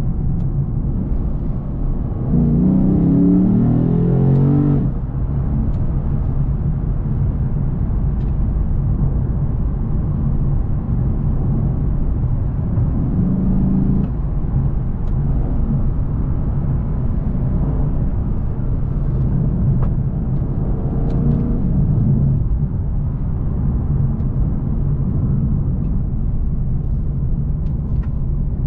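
Lexus RC F Track Edition's 5.0-litre V8 heard from inside the cabin while driving, over steady road and tyre noise. The engine note swells with climbing revs three times: a few seconds in, about halfway through, and again later on.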